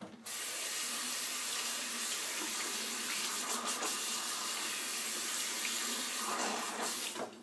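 Bathroom sink tap running steadily into the basin, turned off near the end, as water is run to start a wet shave.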